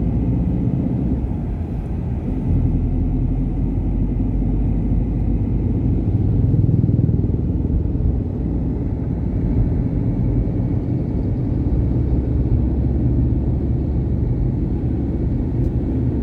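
Steady low rumble of a moving road vehicle, engine and road noise heard from on board, swelling slightly midway.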